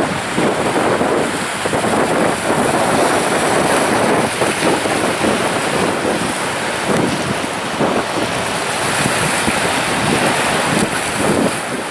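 Small sea waves washing in and breaking over rocks in a continuous rush of surf, with repeated splashes as the water runs between them.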